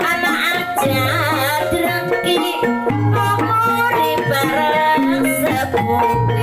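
Javanese traditional music of the kind that accompanies jaranan and reog: hand-drum (kendang) strokes under many held metallophone-like notes, with a high, wavering melody line that is strongest in the first second and a half.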